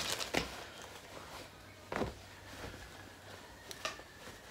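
A few brief rustles of a plastic mailer bag and denim being handled, as a new pair of jeans is pulled out of its packaging and held up.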